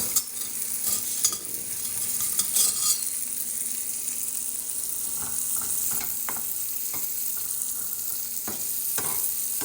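Chopped onions and peppers sizzling steadily as they sauté in a pot, with a utensil stirring and knocking against the pot several times.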